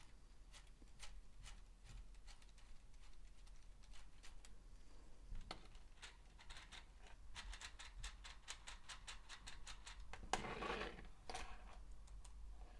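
Faint clicks and rattles of LEGO Technic plastic pieces being handled and pressed together, with a quick run of small clicks about halfway through and a louder rustle near the end.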